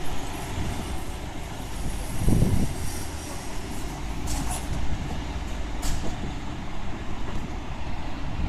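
Scania fire engine's diesel engine running with a steady low rumble that surges louder about two seconds in. Two short hisses come about four and a half and six seconds in.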